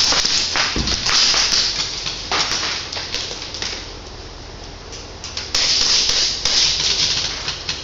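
Airsoft guns firing in rapid bursts of sharp cracks, over and over for the first three seconds or so, then again after a short lull.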